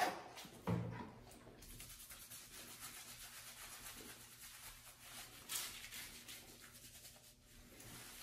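Hands scrubbing shampoo into a golden retriever's wet face fur: a faint rubbing, briefly louder near the start.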